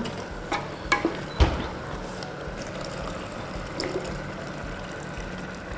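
Water poured from a stainless steel jug into a pot of crushed-lentil soup, a steady pour adding water the lentils need to finish cooking. A few knocks come in the first second and a half.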